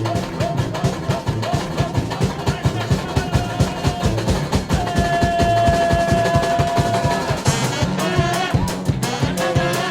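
Brass band playing over a busy, steady drum beat. Near the middle a single long note is held for about two seconds.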